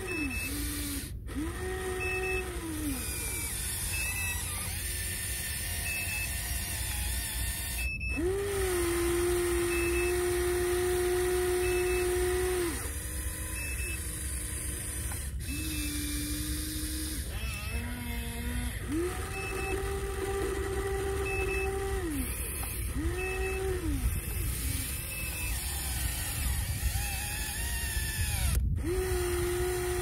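Huina radio-controlled excavator's electric motors whining as the boom, arm and bucket move, in spells of one to four seconds that each rise quickly in pitch at the start and fall away at the end. A short high beep repeats about once a second throughout.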